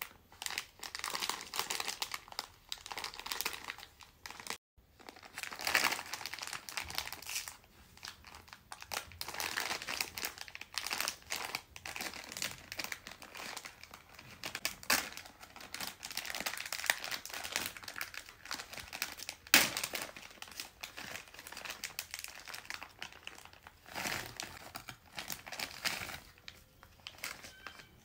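Plastic candy wrappers crinkling and rustling as hands squeeze, handle and tear open candy packets, in dense irregular crackles. A brief gap comes about four seconds in, and one sharp snap, the loudest sound, comes about two-thirds of the way through.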